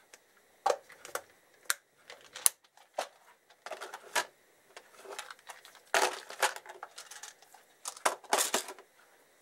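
Small metal bolts clinking and clear plastic parts boxes clicking as they are handled and set down on a workbench: irregular sharp clicks and short rattles, busiest around six and eight seconds in.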